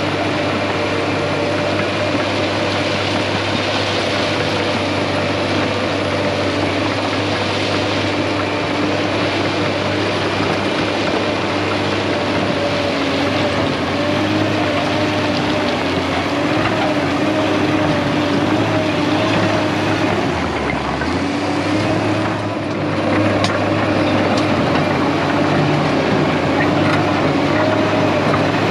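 Case crawler dozer's diesel engine working under load while its steel tracks clatter over broken rock as the blade pushes dirt and stone. A steady whine runs over the engine note, and the sound grows louder after a short dip about three-quarters of the way through.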